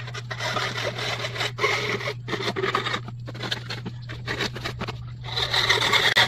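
Hacksaw cutting through the plastic of a motorcycle speedometer housing: rasping back-and-forth strokes, louder near the end.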